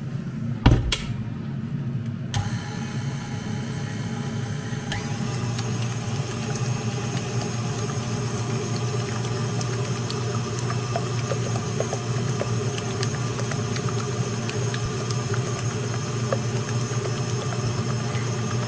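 Electric mixer running steadily, whipping egg whites with salt and sugar. There is one sharp knock just under a second in, and the motor sound gets brighter a little after two seconds and again around five seconds.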